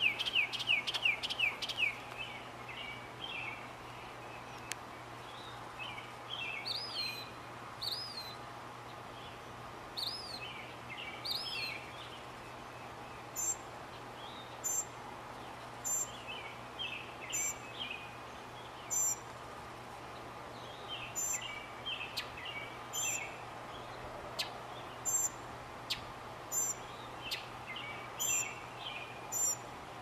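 Northern mockingbird singing a varied run of phrases: quick chattering notes, then rising-and-falling whistles, then short high notes repeating about once every second or so among lower chatter. A steady low hum sits underneath.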